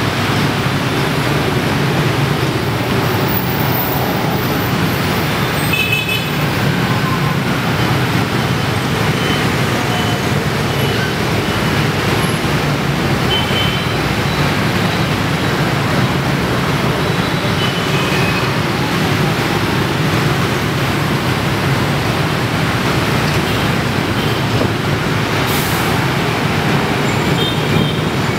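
Dense city street traffic: a steady drone of many motor scooter engines and a passing city bus, with a few short horn beeps and a brief hiss near the end.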